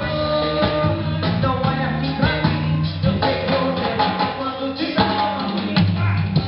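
Live band playing through a sound check: drum kit, bass and guitar, with singing.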